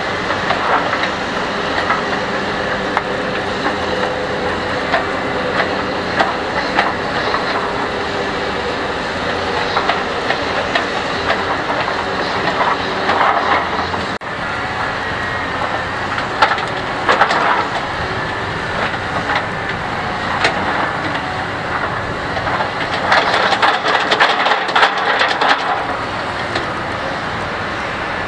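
Hitachi ZX870 excavator's diesel engine running steadily under hydraulic load, with irregular metallic clanks and rattles from its clamshell grab as it works mud. The clatter comes thickest near the end.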